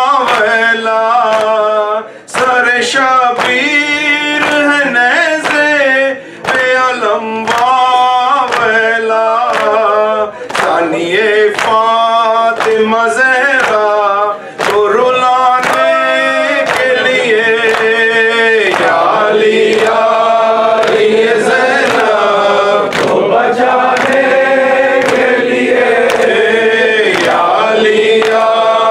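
A man chanting an Urdu noha, a mourning lament, into a microphone in long sung phrases with short breath pauses. In the second half other male voices join in and the sound thickens into group chanting.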